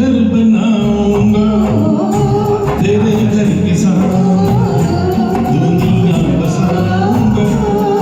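Karaoke backing music of a Hindi film song playing steadily, with a voice singing a wordless melody over it.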